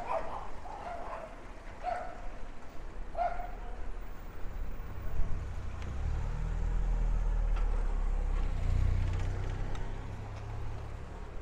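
A dog barking a few short times in the first few seconds, then a motor vehicle's engine rumbling low as it passes for several seconds, over steady street noise.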